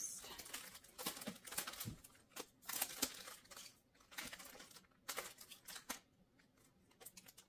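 Plastic-sleeved packs of paper die cuts rustling and crinkling as they are handled and slid into a storage bin, in short scattered rustles, with a quiet spell about six seconds in.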